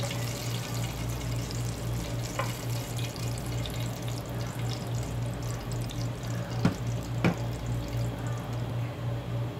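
Hot cooking oil sizzling and crackling as battered shrimp finish deep-frying in a pot, with two sharp clicks about two-thirds of the way through. A steady low hum runs underneath.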